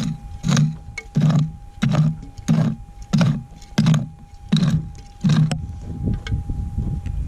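Minelab GPX 6000 metal detector giving a repeating target signal, one burst with each sweep of the coil, about nine in a row at roughly a second and a half per two, over a steady faint threshold tone. The signal sounds good: the sign of a buried gold nugget worth digging. The bursts stop after about five and a half seconds, leaving a low rumble.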